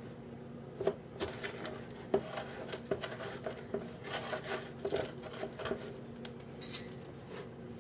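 Kitchen handling sounds as raw chicken tenders are lifted from a plastic container and dipped: scattered light taps, clicks and rubs against plastic and crockery, over a faint steady hum.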